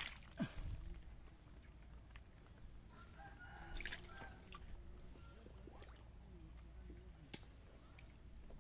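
Water dripping and splashing around a plastic basket of snails as it is dipped into a pond, with a few sharp clicks. A rooster crows faintly about three seconds in.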